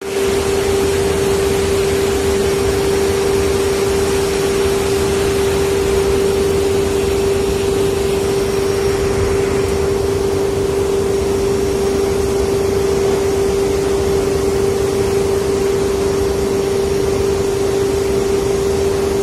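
Steady machinery hum: one constant tone held without change over an even rushing noise.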